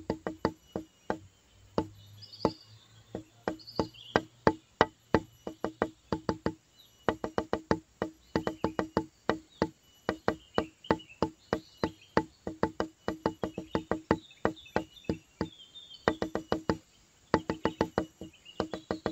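A pencil drawing quick short strokes on a sheet of paper lying on a hard table, each stroke ending in a sharp tap, about four to five a second in runs with brief pauses. Faint high insect chirping underneath.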